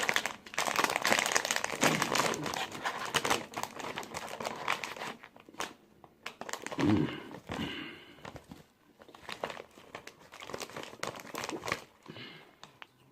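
Chip bag crinkling as it is opened and handled: dense crackling for the first few seconds, then scattered crinkles.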